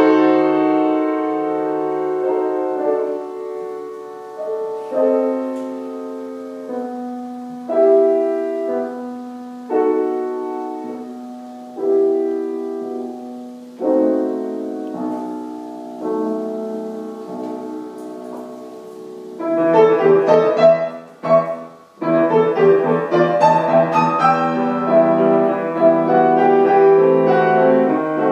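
Grand piano playing classical music: slow, sustained chords struck about every one to two seconds and left to fade, then, about two-thirds of the way in, a sudden louder passage of fast, dense notes with a brief break in it.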